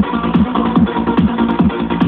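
Electronic dance music played loud over a club sound system: a steady four-on-the-floor kick drum at about 140 beats a minute under sustained synth tones.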